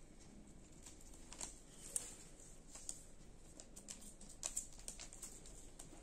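Indian ringneck parrot picking at pea pods on newspaper: scattered, irregular small clicks and crackles of beak, pods and paper, the sharpest about two seconds in.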